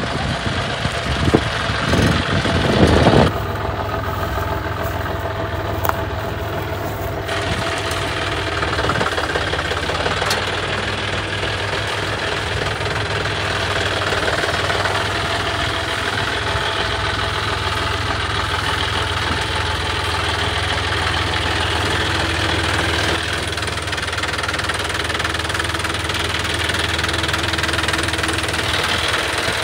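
John Deere 5050 E tractor's three-cylinder diesel engine running steadily at low speed, with a few loud bumps in the first three seconds.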